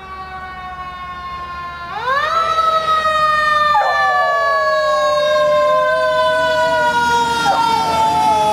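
Fire truck siren wailing: its pitch falls, winds up again about two seconds in, then slowly falls. From about four seconds in a dog howls along with it in a wavering pitch, breaks off briefly and starts again near the end.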